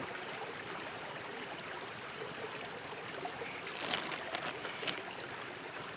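Creek water flowing steadily, with a few light clicks about four and five seconds in.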